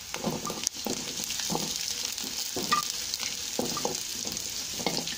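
Onions, garlic and ginger sizzling in hot oil in a metal kadai, stirred with a wooden spatula: a steady frying hiss with irregular scraping strokes of the spatula against the pan.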